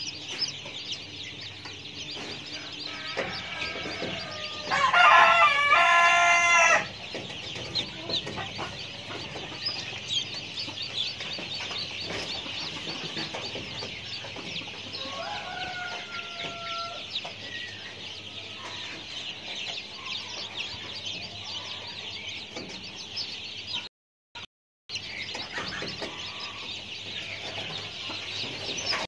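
A rooster crowing once, loud and about two seconds long, about five seconds in, with a fainter call midway. A steady high hiss runs underneath.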